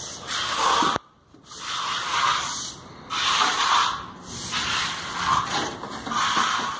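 Stiff bristles scrubbing wet fresh concrete in repeated swishing strokes, about one a second. The surface cement paste is being scrubbed off to expose the gravel aggregate.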